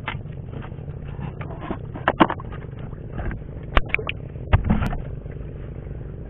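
Knife blade scraping and knocking kagotkot shells off a rock, with sharp clicks about two seconds in and again near four seconds, then a heavier knock against the boat, over a steady low rumble.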